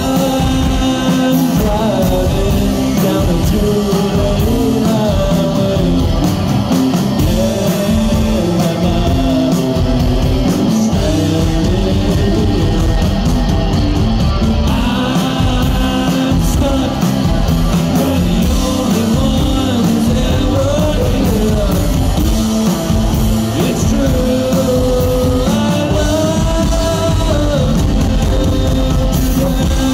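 Rock band playing a song with lead vocals over electric guitar, bass guitar and a drum kit.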